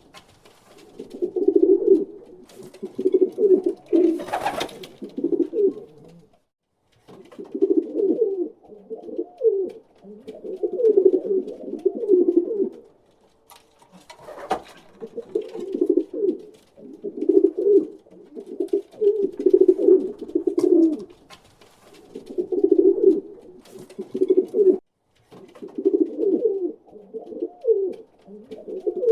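Pigeons cooing in repeated low bouts of a second or two each, separated by short pauses. A brief scratchy noise comes about four seconds in, and a sharp click near the middle.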